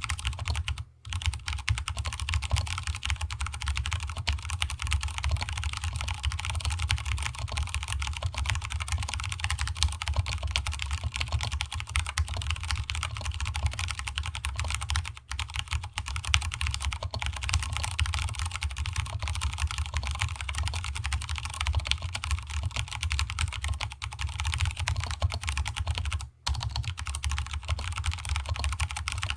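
Fast, continuous typing on a stock Vortex Cypher mechanical keyboard with Cherry MX Brown tactile switches and DSA keycaps, with the desk resonating under the keystrokes. The typing breaks off briefly about a second in, around the middle and near the end.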